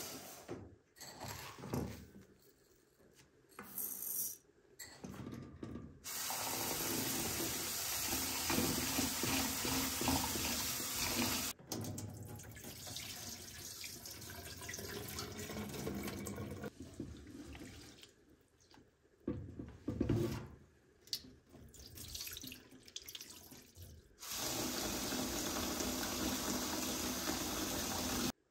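Water from a kitchen tap running into a pot of rice at a stainless-steel sink, as the rice is rinsed to wash off its starch. Steady running water lasts several seconds at a time, broken by swirling and by the cloudy rinse water being poured off into the sink. Over the first few seconds there are short scattered rustles and knocks as dry rice is scooped into the pot.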